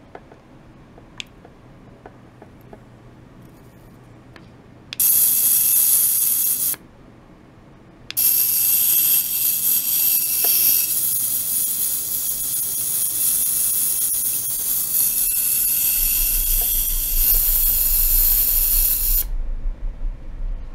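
Hissing spray from a handheld bottle with a green nozzle, aimed into a water tray. It comes in two bursts: a short one about five seconds in and a long steady one of about eleven seconds. A few faint clicks come before the first burst.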